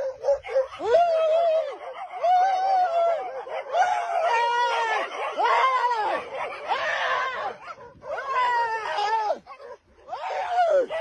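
A person screaming in fright as dogs chase a bicycle: repeated high-pitched shrieks and cries that slide up and down, with dogs barking among them.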